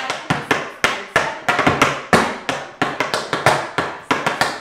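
Tap shoes' metal taps striking a hard floor in a quick run of tap steps, about five sharp clicks a second in an uneven dance rhythm.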